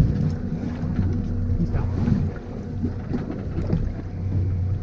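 Fishing boat's engine running steadily at low speed, a constant low hum, with wind buffeting the microphone.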